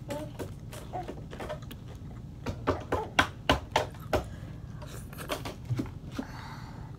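Wet chewing and lip-smacking clicks of someone eating crab meat ceviche with their fingers, with a quick run of louder sharp clicks a few seconds in.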